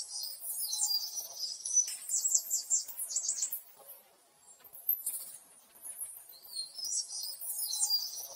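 Small songbirds chirping and trilling in high, quick phrases that repeat in the same pattern about every six to seven seconds, like a looped birdsong background track.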